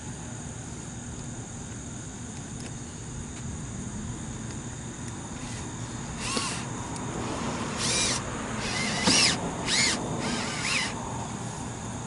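Cordless drill driving a stainless steel screw in short trigger bursts: the motor whine rises and falls with each squeeze, about five times in the second half. A steady high insect buzz runs underneath.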